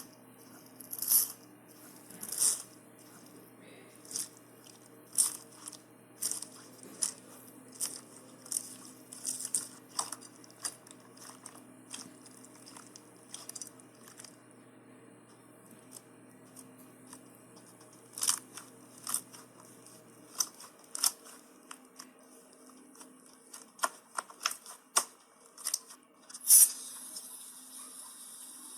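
Slime being squeezed and handled, giving irregular sharp crackles and pops. There is a quieter stretch in the middle and a loud crackle near the end.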